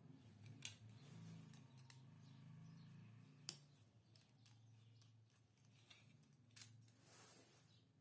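Faint clicks and taps of a small screwdriver and wire being worked into the screw terminal of a rotary selector switch: a few separate sharp clicks, the sharpest about three and a half seconds in, over a low steady hum.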